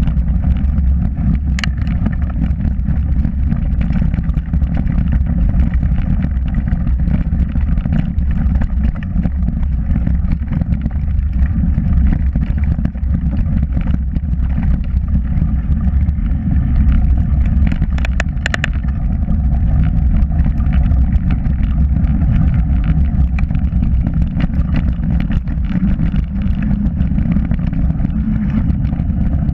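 Mountain bike riding fast down a dirt trail, with wind buffeting the action camera's microphone and the tyres rolling over the ground: a loud, steady low rumble. Sharp knocks and rattles from bumps cut through it now and then, most of them together about 18 seconds in.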